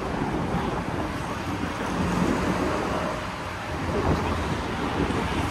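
Steady road traffic noise with wind buffeting the microphone.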